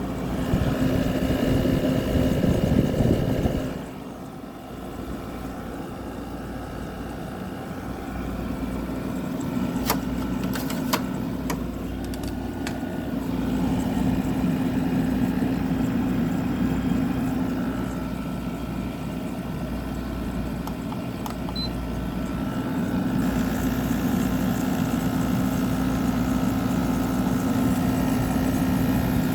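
General Electric 6,000 BTU wall air conditioner running, with the steady hum of its Qing'an rotary compressor and fan, while the compressor's accumulator and coils freeze up; the owner suspects the unit is overcharged. A louder rush of air fills the first few seconds, and a few sharp clicks come about a third of the way in.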